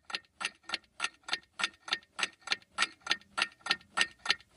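Clock ticking sound effect: a steady, even tick about three times a second.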